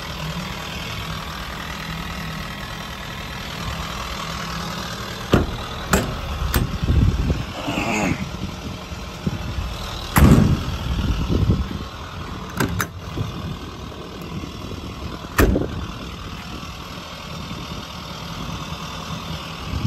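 Clicks and thuds of a truck's doors and compartment latches being worked, a few seconds apart, over a steady low rumble; the loudest thud comes about ten seconds in.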